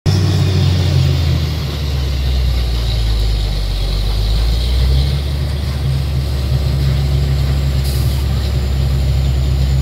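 Truck-mounted borewell drilling rig running under load: a loud, steady deep engine drone, with a hiss of water and mud being blown up out of the bore around the drill pipe.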